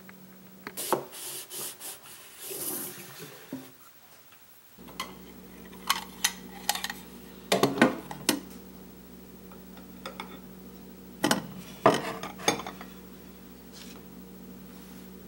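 Glass and ceramic bowls clinking and knocking against each other as they are handled and set down, in several short clusters of sharp knocks, over a faint steady hum.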